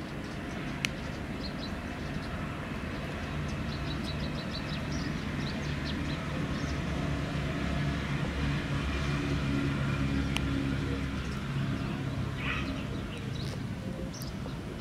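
Low engine hum of a vehicle, swelling louder through the middle and easing off near the end, with faint high chirps over it.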